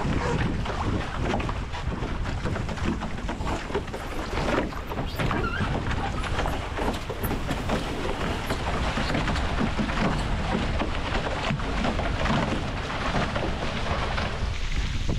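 Water rushing and splashing along the hulls of an A-Class sailing catamaran as it picks up speed, with wind buffeting the microphone as a low rumble.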